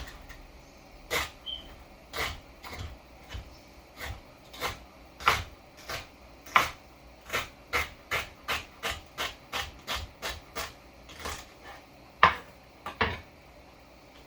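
Knife cutting on a wooden cutting board: a run of short, separate strokes, about two a second, ending with two louder strokes near the end.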